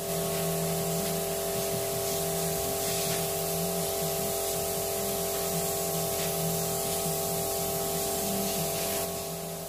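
Air-fed spray gun spraying two-part paint: a steady hiss of compressed air and atomised paint that stops about nine seconds in.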